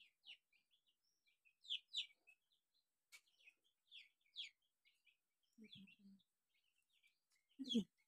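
Faint, scattered chirps from small birds, many short calls in quick irregular succession, with a brief louder low-pitched sound near the end.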